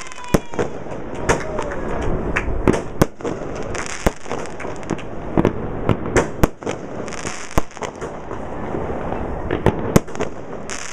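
A 1.75-inch consumer firework cake firing shot after shot: sharp bangs about once a second at uneven spacing, with crackling and hiss between them from gold crackers and golden-rain effects.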